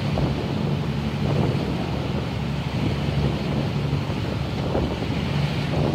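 Boat engine running at a steady hum, with wind buffeting the microphone and water washing past the hull.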